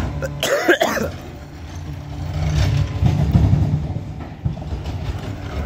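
Garbage truck's diesel engine running as the truck manoeuvres, its low rumble growing louder about two to three seconds in. A short sharper sound comes just under a second in.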